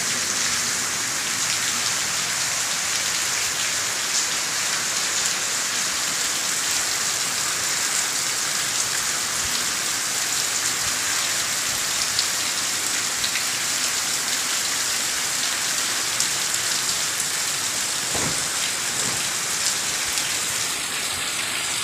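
Heavy rain pouring steadily onto wet open ground, with scattered sharper drop ticks close by.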